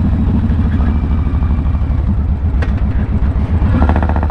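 Victory Hammer motorcycle's V-twin engine running steadily under way, with a short click about two and a half seconds in.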